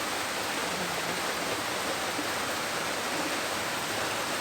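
Heavy rain falling in a steady downpour, an even hiss with no let-up.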